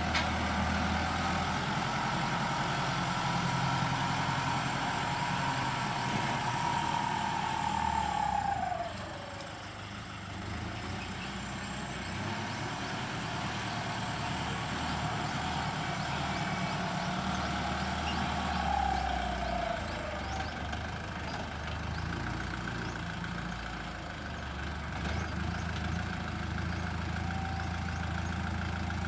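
Kubota L50 turbo-diesel tractor engine running as the tractor works, pushing soil with its front blade. A whine drops in pitch twice, about a third and two-thirds of the way through, as the tractor eases off.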